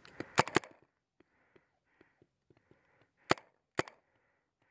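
Paintball marker firing, a Spyder pistol shooting blind over cover: a quick burst of about four sharp pops near the start, then two single pops about half a second apart a little past three seconds in.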